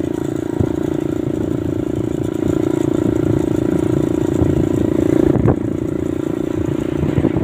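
Motorcycle engine running steadily on the move, with road rumble and wind, and a brief knock about five and a half seconds in.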